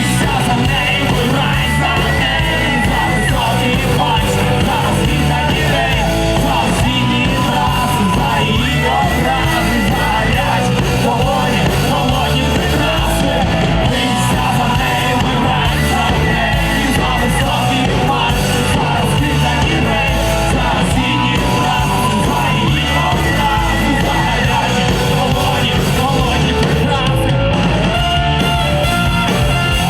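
Live rock band playing loudly in a large hall, with yelled singing over guitars, bass and drums.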